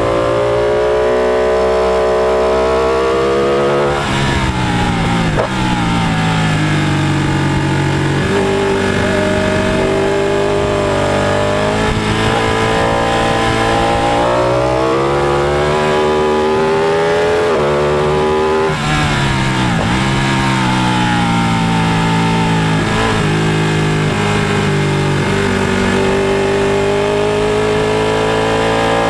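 Sport motorcycle engine at full track pace, heard from the bike itself. The engine note climbs steadily and drops each time a gear is changed, with deep falls in pitch about four seconds in and again a little past halfway before it pulls up again.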